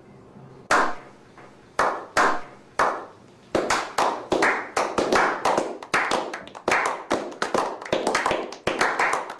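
Slow clap by a small group of men: a few single sharp claps about a second apart, then from about three and a half seconds in more hands join and the claps come faster and overlap into applause.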